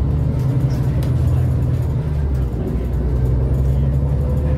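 Scania L94UA articulated bus running, heard from inside the cabin: a steady deep engine drone with a faint whine slowly rising in pitch through the second half as the bus picks up speed.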